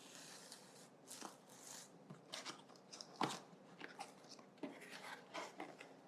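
A camera box and its paper packaging being opened and handled: quiet, scattered rustles, scrapes and small clicks, with a slightly louder crackle about three seconds in.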